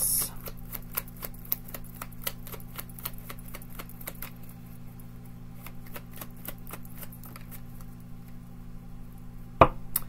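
A tarot deck being shuffled by hand: a run of light card clicks and flicks, thick for the first few seconds and sparser after. Near the end a sharp knock sounds as a card is set down on the table.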